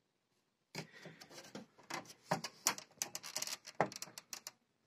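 Hands working at a Panasonic CRT TV's main circuit board and its wiring to pull the board out: a run of irregular clicks, scrapes and rattles of plastic and wire, starting just under a second in and stopping shortly before the end.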